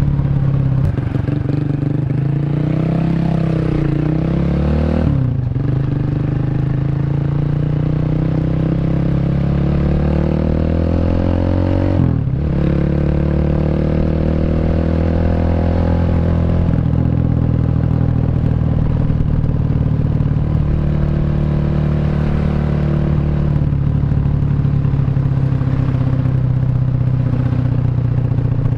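Bored-up 150cc Honda Revo single-cylinder four-stroke engine through a CLD C7 aftermarket exhaust, accelerating on the road. Its note rises, drops sharply at two gear changes about five and twelve seconds in, climbs again, then holds a steady cruising pitch.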